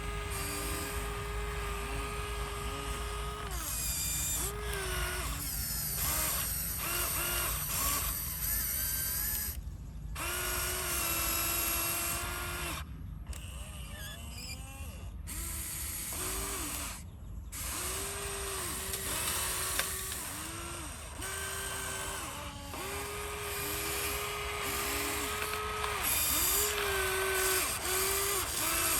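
Small electric motors of remote-control construction models whining in repeated short bursts, each one spinning up and winding down as the machines are worked. The sound breaks off abruptly several times.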